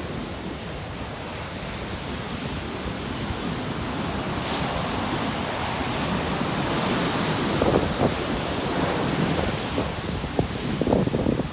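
Sea waves washing on the shore, a steady rush that swells slowly over several seconds, with wind buffeting the microphone in short gusts near the end.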